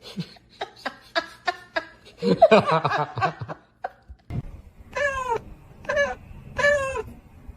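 A domestic cat meowing over and over: a run of short meows, then three longer meows that fall in pitch, about a second apart, near the end.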